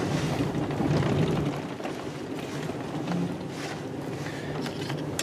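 Plow truck engine running, heard from inside the cab as a steady low hum that drops off somewhat about a second and a half in.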